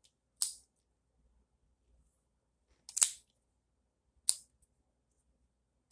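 Three sharp, short clicks from a cigar tool being worked in the hand, the first about half a second in and the other two close together near the end.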